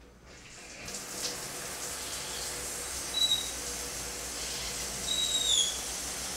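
Shower spray coming on about a second in, then running as a steady hiss, with a few brief high squeaks around the middle.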